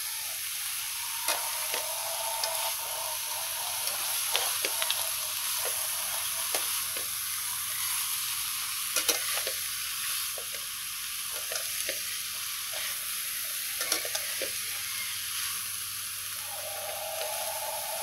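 Bean sprouts, fried tofu and oyster mushrooms sizzling in a hot wok as they are stir-fried, with a steady hiss and the irregular clicks and scrapes of a metal spatula and chopsticks against the pan.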